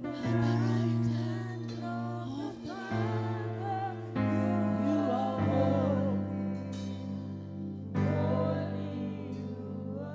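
Gospel worship music: sustained chords that change every second or two, with a singer's wavering, wordless melody lines over them.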